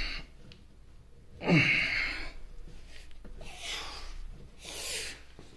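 A man's grunt, falling in pitch, about one and a half seconds in, then two breathy exhales: the sounds of straining to free a stuck lathe headstock shaft.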